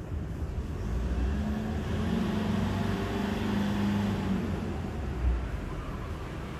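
Low engine hum and rumble of a motor vehicle that swells over a few seconds and then fades, as if passing by. A short low thump comes about five seconds in.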